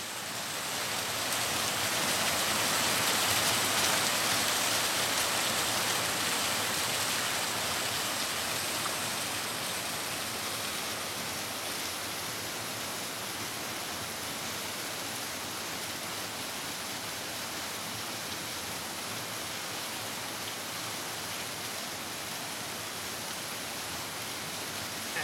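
Steady rushing of a mountain stream and small waterfall over rocks. It fades in at the start, is a little louder over the first few seconds, then holds even.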